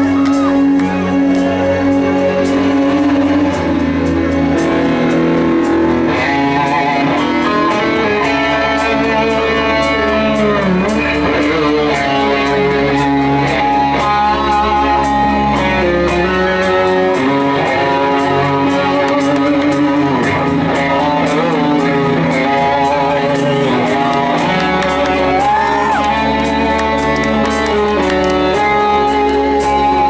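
Live rock band playing: an electric guitar plays a lead melody over bass and a steady beat.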